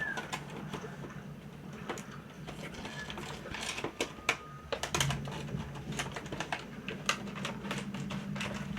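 Irregular light clicks and taps of small plastic parts being handled, over a steady low hum.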